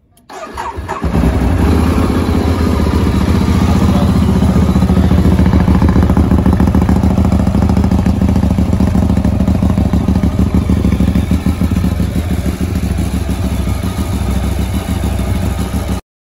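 Ducati 848 Evo's L-twin engine starting after a service: the starter cranks briefly, the engine catches about a second in, and it then idles steadily through the twin under-tail silencers. The sound cuts off suddenly near the end.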